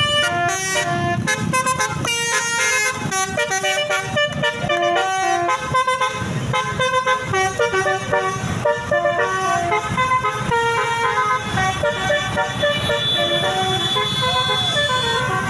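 A 12-trumpet basuri telolet bus horn playing a fast tune, jumping from note to note several times a second, with a high note held through the last few seconds.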